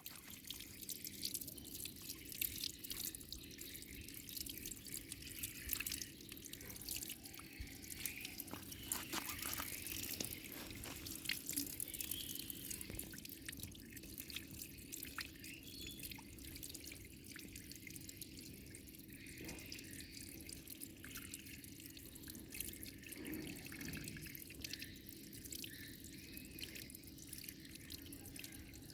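Running water splashing and dripping, with many small irregular splashes, during a baby monkey's bath.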